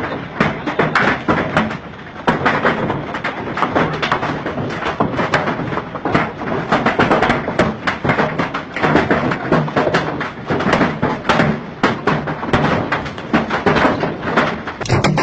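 Large hailstones pelting down, many hard knocks and thuds in quick, irregular succession.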